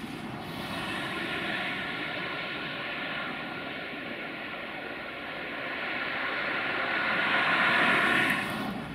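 Quadcopter drone's motors and propellers whirring: a steady whine over a hiss that grows louder over the last few seconds and then drops off sharply just before the end.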